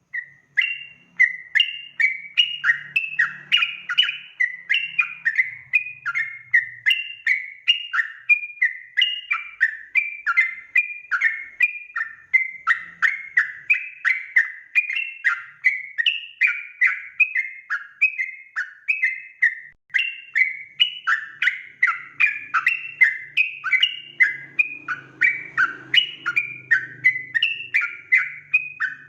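Yellow-vented bulbul (trucukan) in full song: a fast, unbroken run of repeated bubbly chirping notes.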